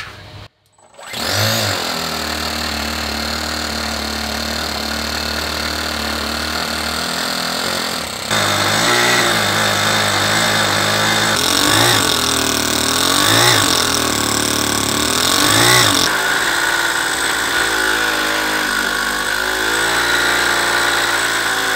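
Small single-cylinder model four-stroke glow engine running fast and steady, then its revs rise and fall back several times before settling again, as it is being tuned to run smoothly.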